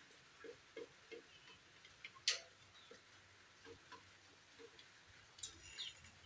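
Kienyeji chickens giving faint, short low clucks, with a few high peeps near the end. A sharp tap about two seconds in and another near the end stand out.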